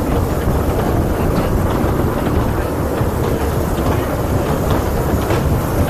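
Miniature railway train running along its track, heard from aboard an open passenger car: a steady rumble of wheels and carriages, with wind noise on the microphone.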